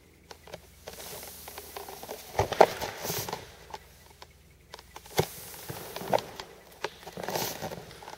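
T-bar finish applicator pad drawn across wet floor finish on hardwood boards: soft swishing strokes, with scattered sharp clicks and knocks, the loudest about two and a half seconds in and again around five and six seconds.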